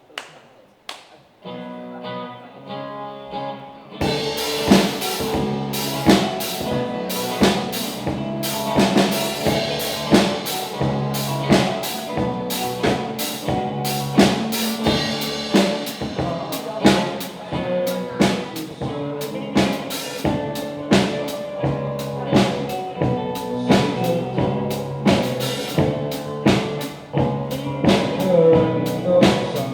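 Rock band playing: a short instrumental intro, then about four seconds in the drum kit and full band come in with a steady beat.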